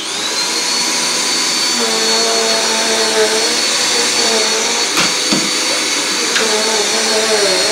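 Upright vacuum cleaner switched on, its motor spinning up with a quick rising whine, then running steadily at full speed.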